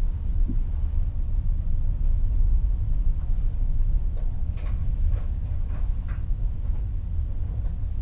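Steady low rumble of a ship at sea, heard at a cabin porthole, with the sea washing along the hull. A few faint short sounds come between about four and six seconds in.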